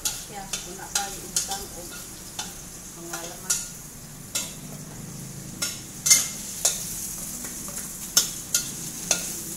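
A metal spatula scraping and knocking against a wok at irregular intervals while meat and onion sizzle in hot oil.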